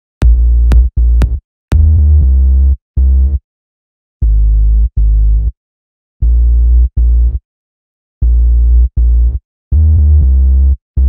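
Electronic background music with a drum-machine beat, chopped into short, bass-heavy stabs, mostly in pairs, with silent gaps between them. A few sharp clicks fall among the first stabs.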